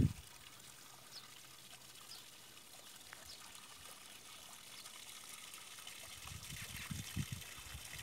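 Faint, steady trickle of running water, with a few short, faint bird chirps in the first few seconds. Low rumbles of wind on the microphone come briefly at the start and again near the end.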